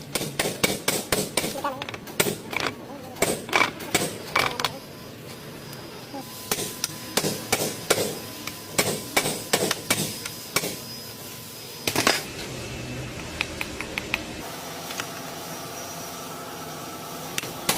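Hammer blows on metal, a quick irregular run of strikes two to three a second, with one louder strike a little after the run stops.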